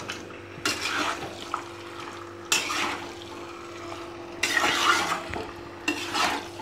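A metal spatula scraping and turning chicken pieces through thick spice paste in a pan, in four separate strokes: meat being sautéed dry in its masala, with no water added.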